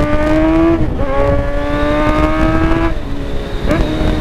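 Kawasaki Z1000's inline-four engine at full throttle, its pitch climbing steadily, a quick upshift about a second in, then climbing again until the throttle closes about three seconds in and it settles to a lower, steady note. Wind rushes over the microphone.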